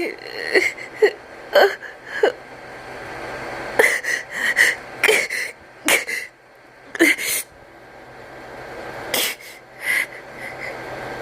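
A person's sneeze buildup: a dozen or so short, sharp catching inhales and gasps, some with a little voice in them, that never turn into a sneeze. These are false starts.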